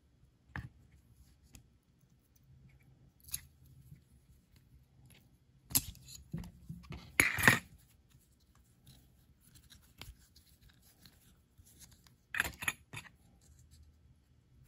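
Scattered clicks, clinks and scrapes of metal hydraulic cylinder parts (gland and piston) handled on a workbench while their seals are worked off, loudest in a cluster about six to seven and a half seconds in and again about twelve and a half seconds in.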